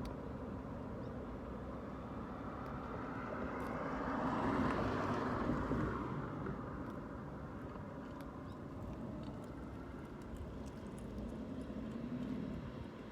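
Wind buffeting the microphone as a steady, uneven rumble, swelling with a stronger gust about four to five seconds in.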